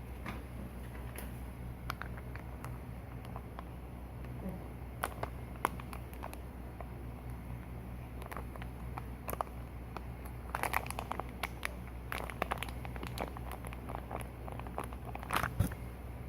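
Homemade glue-and-activator slime being squeezed and worked by hand, giving scattered small clicks and crackles in bunches, over a steady low hum.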